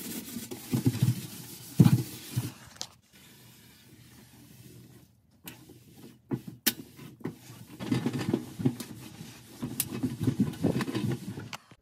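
Rubbing and wiping strokes on the floor of an oven, a cloth working off foamy cleaner left by an iron-wool sponge, in uneven bursts. There is a quieter stretch in the middle with a few sharp clicks.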